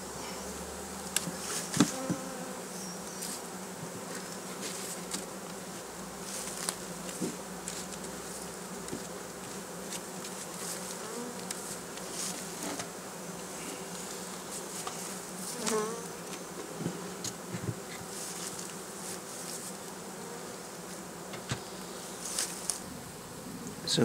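A swarm of honeybees buzzing steadily as a loud mass hum while it is moved into a new hive. A few short knocks and clicks come through over the buzzing.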